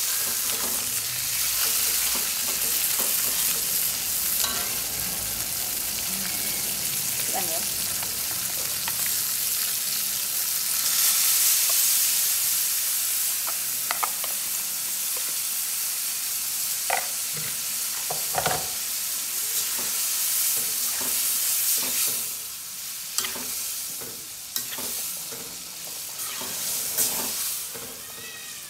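Fish and spice paste frying in a steel wok, a steady sizzle, while a metal spatula stirs and scrapes against the pan. A few sharp clinks and knocks of the spatula come in the second half as fermented durian paste is scraped in and stirred through.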